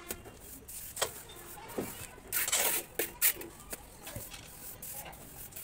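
Plastering trowel scraping and slapping cement-sand plaster onto a rough wall: a series of short scrapes and clicks, with the longest, loudest scrape about halfway through.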